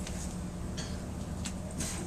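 Room tone of a crowded room: a steady low hum with a few short, soft rustles.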